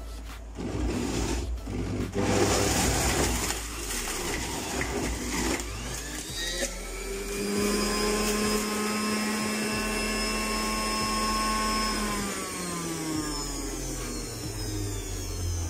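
Electric centrifugal juicer grinding beetroot pressed down its feed chute, the motor labouring with a rough, noisy grinding and a few knocks. About six seconds in, as the beetroot goes through, the motor speeds up to a steady whine, and its pitch drops again from about twelve seconds on.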